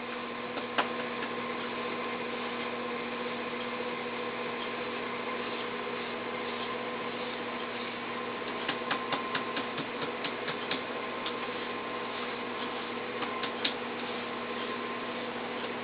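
Steady electrical or machine hum over a background hiss, with one small click about a second in and a run of small clicks past the middle.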